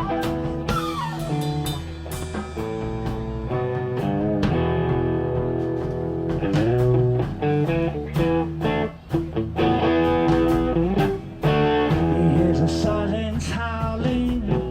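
Rock band playing an instrumental passage: guitar with bent notes over bass and drum kit.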